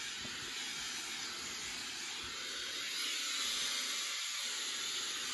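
Conair Steam & Iron 2-in-1 Turbo handheld garment steamer hissing steadily as it jets steam onto a hanging garment.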